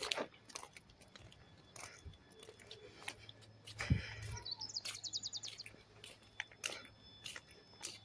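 Footsteps on a paved road, with birds chirping and a short rapid high bird trill about five seconds in.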